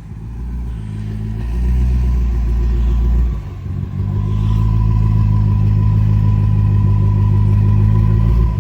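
BMW M5 Competition's twin-turbo V8 running at low revs as the car reverses under its own power. The engine note rises over the first second or so, dips briefly about three seconds in, then holds steady and louder before cutting off suddenly at the end.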